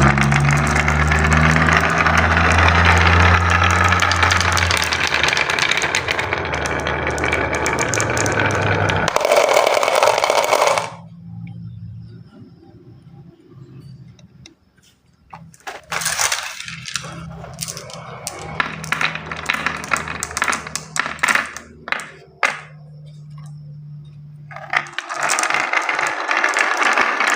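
Many marbles rolling and clattering down a wooden marble-run track: a dense rolling rattle for the first ten seconds or so, then a quieter stretch of scattered sharp clicks and knocks, and the dense rattle again near the end. Background music with low notes plays underneath.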